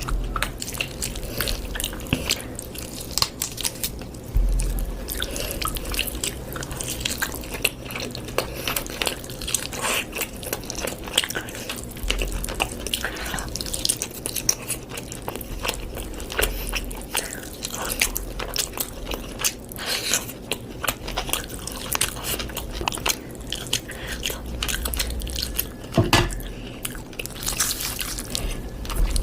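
A person chewing and biting chicken and rice close to the microphone, with many irregular crunches and clicks.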